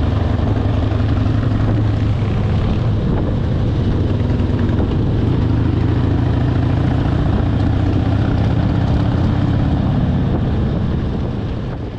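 Motorcycle engine running at a steady cruise, with rushing wind noise over it. It fades out near the end.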